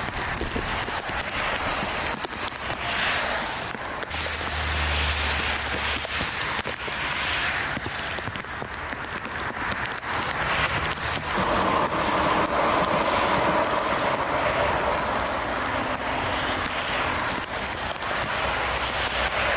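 Gusty wind rushing over the microphone in surges. From about halfway through, the steady whine of an airliner's jet engines comes in as a plane approaches to land.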